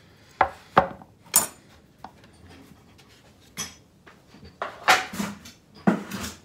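A flat metal blade clinking and scraping against a bonsai pot while loosening the root ball, then a few louder knocks of pots being handled and set down. The clinks come singly, with short quiet gaps between them.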